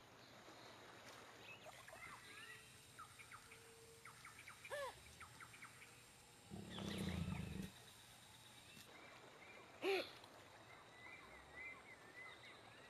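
Jaguar giving a low, rough growl of about a second, starting about six and a half seconds in, over faint bird chirps. Two short calls are heard, one near five seconds in and one near ten.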